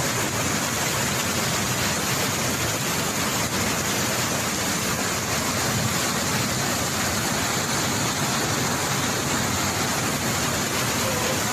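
Muddy floodwater rushing past in a fast torrent, a steady dense roar of water.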